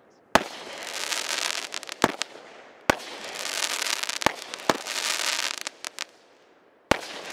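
Consumer aerial fireworks bursting: about six sharp bangs a second or so apart, each burst followed by a dense fizzing crackle of crackling stars that dies away in the quieter moment before the last bang.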